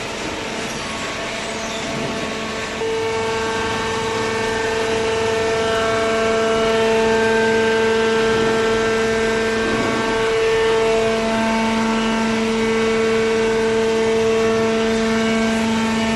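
Fully automatic vertical cardboard baler running: its hydraulic pump and motor give a steady whine that gets louder about three seconds in, and its lower tone strengthens about ten seconds in.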